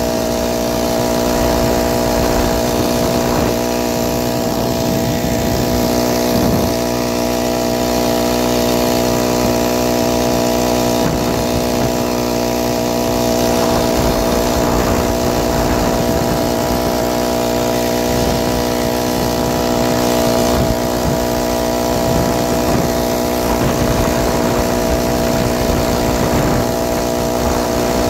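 BikeBerry 49cc four-stroke motorized bicycle engine running under way at a steady, unchanging speed.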